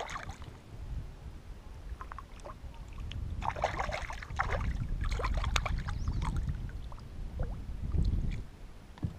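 Hooked yellow perch splashing at the surface beside a kayak as it is reeled in, a run of quick splashes in the middle, then a heavier slosh near the end as a hand reaches into the water for the fish. A low rumble sits underneath.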